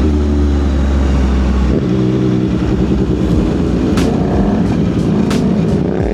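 CFMOTO 675SS inline-three engine running under way through an aftermarket exhaust. It holds a steady pitch at first, shifts about two seconds in, and rises again near the end. Two sharp clicks come in the second half.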